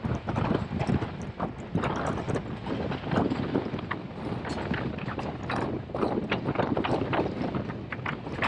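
Pakistan Railways passenger train running: irregular knocks and clatter of the wheels and carriage over a steady rumble, with some wind on the microphone.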